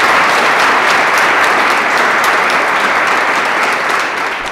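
Audience in a hall applauding, a dense steady clapping that fades away near the end.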